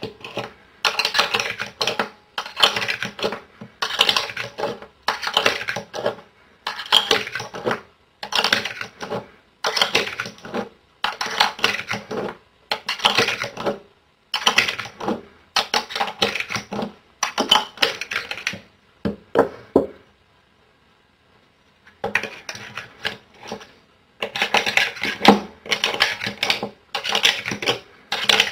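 UpLULA universal pistol magazine loader pressing cartridges one by one into a pistol magazine: a cluster of metallic clicks and clinks with each round, about every second and a half. There is a short pause about two-thirds of the way through, then the loading clicks go on.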